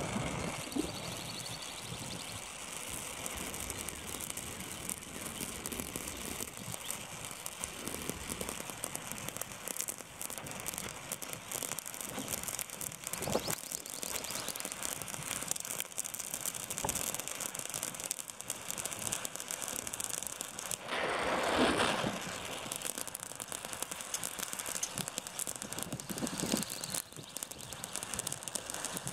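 Oxy-acetylene welding torch flame hissing steadily on steel plate, with a fine crackle of sparks spitting from the molten puddle as a fusion bead is run. A louder rush lasting about a second comes about two-thirds of the way through. The gas may have been set too high for this bead.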